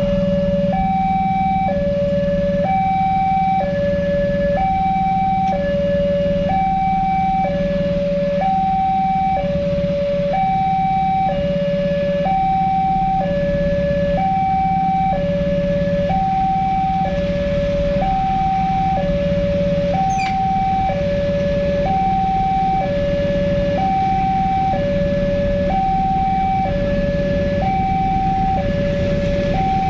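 Indonesian railway level-crossing warning alarm sounding: an electronic two-tone signal alternating high and low, each tone held about a second, repeating steadily while the barrier is down for an approaching train. A steady low hum runs underneath.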